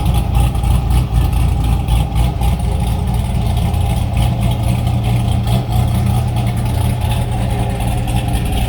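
2002 Corvette Z06's LS6 V8, fitted with a BTR Stage 3 cam, ported heads and long-tube headers with an X-pipe into the stock titanium mufflers, idling with an uneven, choppy lope from the aggressive cam.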